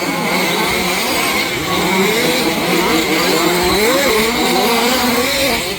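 Several 1/5-scale petrol two-stroke off-road RC cars racing together, their small engines revving up and down in overlapping, wavering whines.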